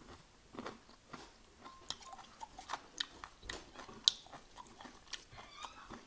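Close chewing and crunching of a mouthful of crispy bánh xèo (Vietnamese sizzling crepe) with fresh greens: irregular crisp crunches, the sharpest about four seconds in.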